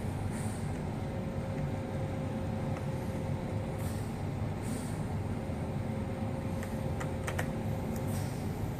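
Steady low background hum with a few small sharp clicks, most of them close together about seven seconds in: tiny Phillips screws and a small screwdriver being handled while the laptop screen frame is taken apart.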